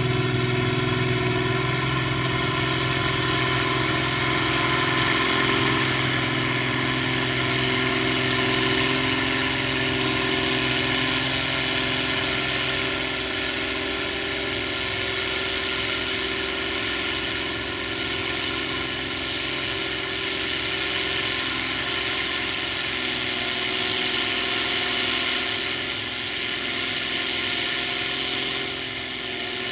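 Fiat 1380 DT tractor's six-cylinder diesel engine running steadily under load as it pulls a plough through wet, heavy soil. The deep part of the engine note eases a little about halfway through.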